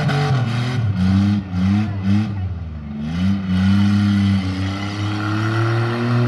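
Engines of compact demolition-derby cars revving. There are a few quick blips of the throttle about a second in, then a held rev that climbs slowly in pitch.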